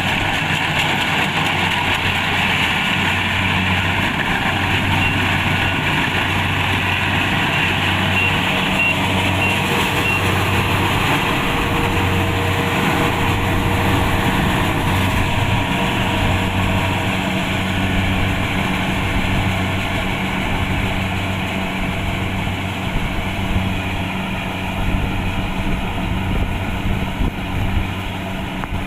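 Kubota DC-70 Plus rice combine harvester running steadily, a continuous diesel machine drone with a low hum that throbs about once a second.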